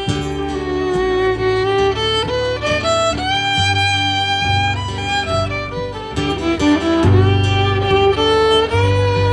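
Fiddle taking an instrumental solo break in a country song, playing long sustained and sliding notes over acoustic guitar accompaniment.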